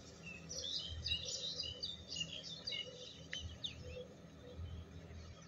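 Small birds chirping and twittering in quick high notes, thickest in the first half, over a faint, steady low drone from a distant tractor engine.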